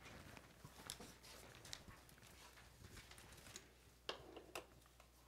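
Near silence: quiet room tone with a low hum and a few faint clicks and rustles, the slightly louder ones about a second in and again about four seconds in.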